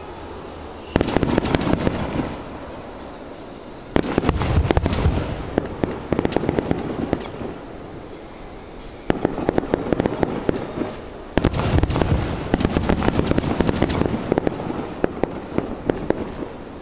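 Aerial fireworks shells bursting in four volleys a few seconds apart. Each volley is a sudden bang followed by a second or two of dense crackling and low rumble.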